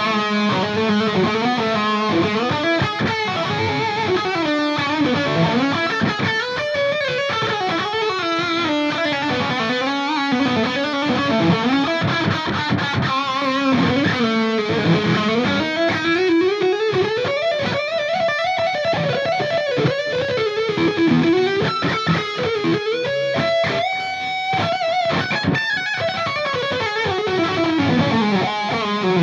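Electric guitar (a Reverend fitted with DiMarzio Crunch Lab bridge and LiquiFire neck humbuckers) played through an amp as a pickup demo. It plays flowing single-note lead runs that sweep up and down in pitch, with a long held high note about 24 seconds in.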